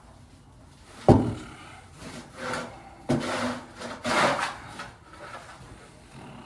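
A single sharp knock, then several short scraping, rubbing strokes on what sounds like wood.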